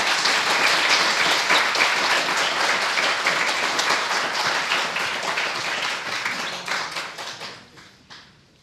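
Audience applauding, with many people clapping; the applause dies away near the end.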